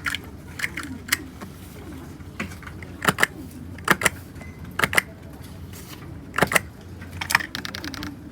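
Typing on a Dugard x Thinkway Toucheff mechanical keyboard with red linear switches: scattered keystrokes in uneven runs, with a few louder key strikes in the second half.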